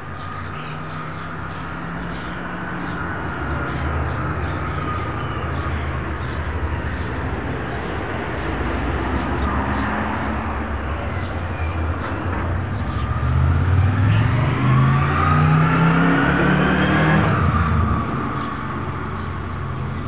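A motor vehicle's engine runs steadily. About two-thirds of the way through it rises in pitch and gets louder as it speeds up, then drops away sharply near the end.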